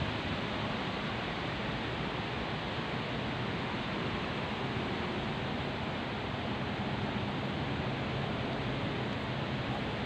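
Wind blowing steadily through palm fronds and banana leaves, an even rustling hiss.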